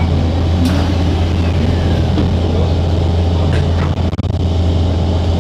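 Singapore MRT train running, heard from inside the carriage: a steady low rumble and hum with wheel and track noise.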